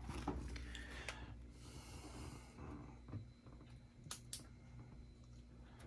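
Faint handling noise: a few light clicks and knocks, two sharper ones about four seconds in, over a low steady hum.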